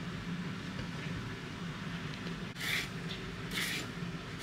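Hand vegetable peeler scraping strips of skin off a courgette, two short strokes about a second apart in the second half, over a steady low hum.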